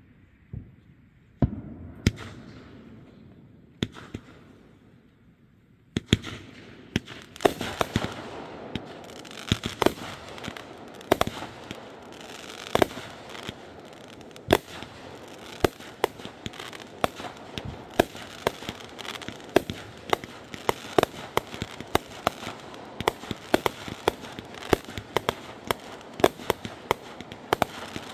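Fireworks going off. A few single bangs and a fading hiss come first. About six seconds in, a steady barrage of sharp bangs, several a second, starts over continuous crackling.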